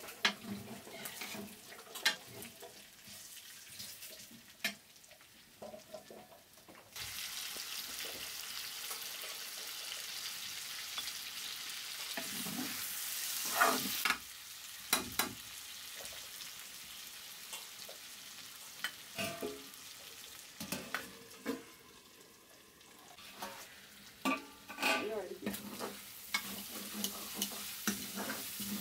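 Chicken curry frying in a steel kadai, with a metal ladle clinking and scraping against the pan as it is stirred. A steady sizzle starts abruptly about seven seconds in and lasts about seven seconds. More clinks of the ladle follow, and the sizzle picks up again near the end.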